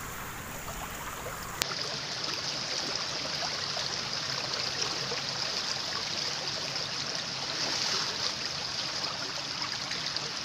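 Shallow, fast-flowing stream of water rushing steadily over its bed.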